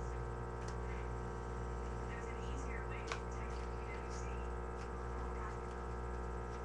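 Steady electrical hum with many overtones, over faint rustling and one small sharp click about three seconds in as a playing card is handled.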